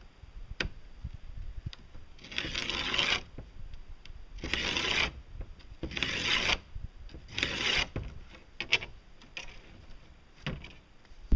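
Four rough scraping strokes of a fiberglass strip being worked by hand against a fiberglass disc, each about a second long, followed by a few light clicks.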